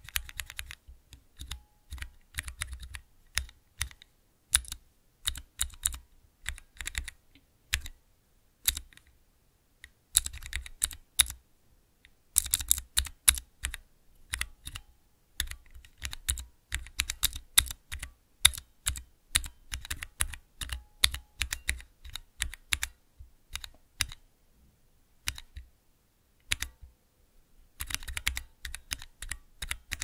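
Typing on a Cherry MX mechanical keyboard: rapid runs of keystrokes broken by a few pauses of a second or so.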